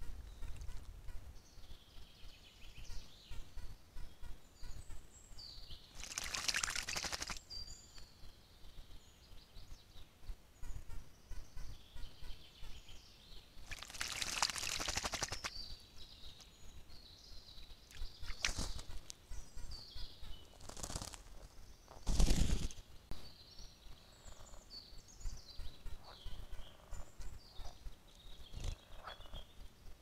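Songbirds chirping and singing throughout, with a few brief bursts of splashing from a bird bathing in a shallow pool. Several sharp knocks, the loudest about two-thirds of the way in.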